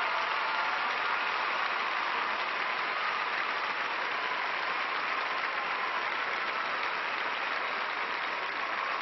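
Large arena audience applauding steadily after a color guard performance, slowly easing off.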